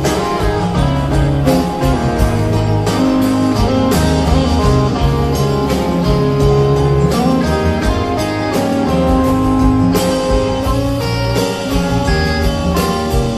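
Live band playing an instrumental break with no singing: guitar over bass and drums, steady and full throughout.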